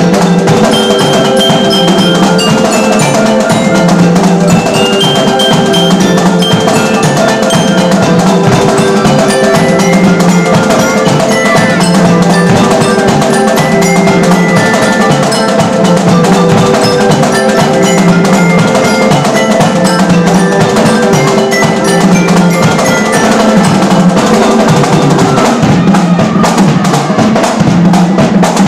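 A marching band playing: glockenspiels ringing out the tune over snare drums, with held melody notes, steady and loud without a break.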